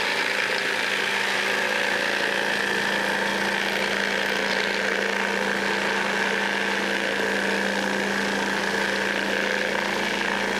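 RCBS vibratory case tumbler running, its walnut-shell media churning once-fired brass rifle cases to clean and polish them: a steady motor hum under an even hiss of the moving media and cases.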